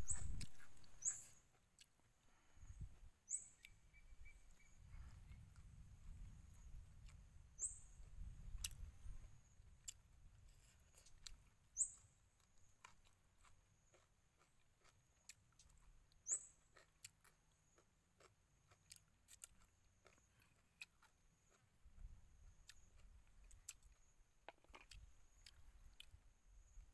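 Faint eating sounds: chewing and light clicks of chopsticks against a ceramic plate, with a low rumble that comes and goes. A short high chirp recurs every few seconds.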